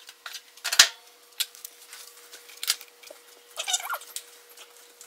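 Potato gnocchi dough handled and kneaded by hand on a granite counter: a dull thump a little under a second in, then scattered soft slaps and rustles of hands pressing the dough. A faint steady hum runs underneath.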